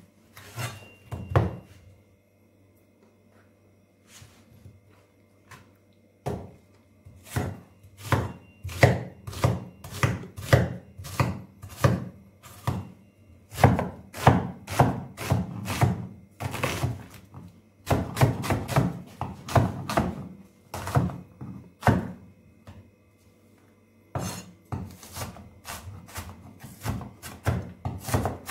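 Kitchen knife chopping an onion on a wooden cutting board: a long run of sharp knife strikes on the board, about two to three a second, broken by a few short pauses.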